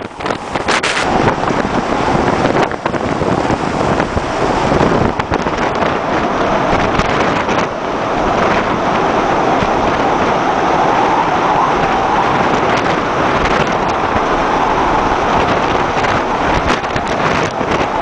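Storm-force wind blowing hard across the microphone aboard a large tanker in heavy seas, a dense, steady rushing noise mixed with the wash of breaking waves and spray. Gusts buffet the microphone, most in the first few seconds and again near the end.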